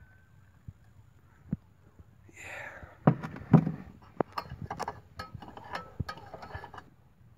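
Two heavy knocks about three seconds in, followed by a run of light clinks and taps: a coffee pot and a small camp stove being handled and set down on a plywood counter beside an enamel mug.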